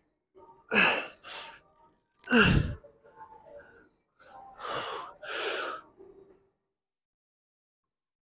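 A man breathing hard with exertion: about five short, forceful breaths, the third the loudest, with a low rumble of breath on the microphone.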